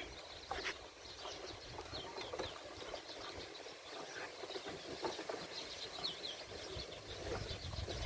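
A cow being milked by hand, the squirts of milk going into a steel pail, with small birds chirping over and over.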